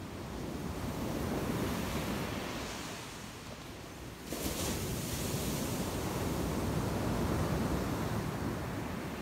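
Ocean surf breaking and washing up a sandy beach, a steady rushing that swells and eases, then grows suddenly louder and hissier about four seconds in as another wave breaks.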